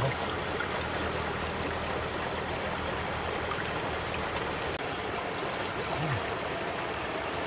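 River water flowing past, a steady rushing noise.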